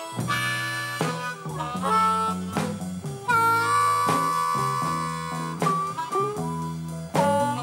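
Chicago blues band playing: harmonica leading with bent notes and one long held note in the middle, over electric guitar, bass guitar and drums with cymbals.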